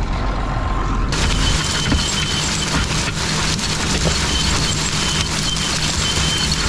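Tractor running in the field with a steady low hum. About a second in, a loud crackling, rattling noise starts abruptly over it, and a faint high beep repeats now and then.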